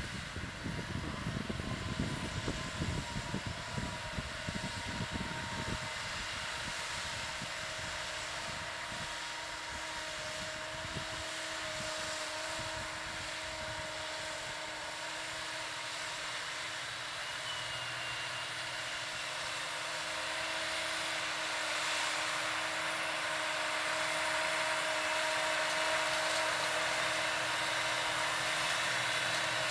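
New Holland T7.290 tractor's six-cylinder diesel engine running under load while pulling a Horsch Serto 12 SC seed drill through tilled soil, with a steady whine over the engine noise. It grows louder over the last third as the rig comes closer.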